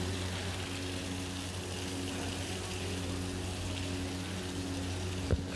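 Water from a garden hose pouring and splashing onto a wet handmade carpet, a steady hiss over a constant low machine hum. A single sharp click just before the end.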